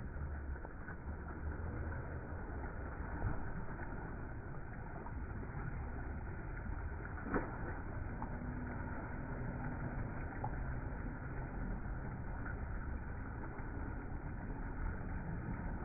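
Water splashing and lapping as swimmers move through a swimming pool, over a steady low rumble, with a single sharp click about seven seconds in.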